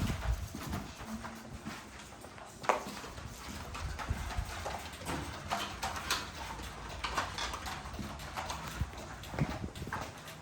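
Puppies moving about in their pen, making scattered, irregular clicks and knocks.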